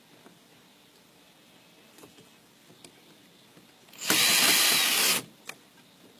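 Power screwdriver running for about a second, driving in one of the screws that hold a microwave's control board. A few faint clicks come before and after it.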